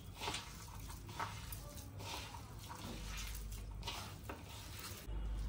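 Faint, irregular sounds of a chopped-vegetable and boiled-potato mixture with rice flour and cornflour being mixed in a bowl.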